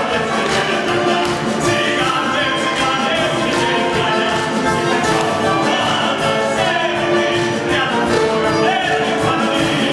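Orchestra playing a lively, continuous passage of an operetta song.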